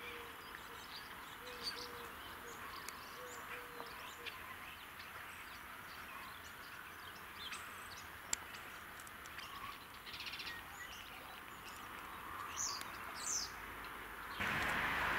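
Birds chirping now and then, short high calls with a couple of quick sweeping notes near the end, over a faint steady hiss. Near the end the sound jumps suddenly to a louder, steady rushing noise.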